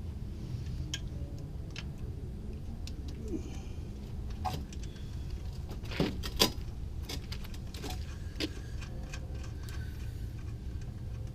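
Scattered metallic clinks and knocks of hand tools and suspension parts being handled, with two sharper knocks close together about six seconds in, over a steady low hum.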